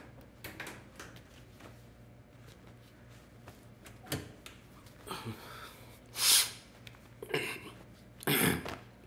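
A towel rubbed over a face, heard as five short noisy rubbing and breathy bursts from about four seconds in. The loudest comes a little after six seconds.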